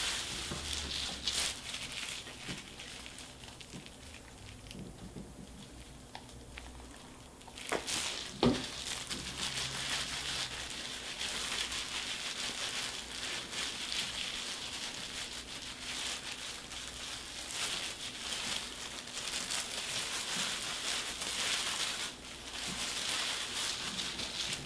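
Irregular crinkling and rustling of plastic-gloved hands working hair dye into locs at the scalp, with a couple of sharper knocks about eight seconds in.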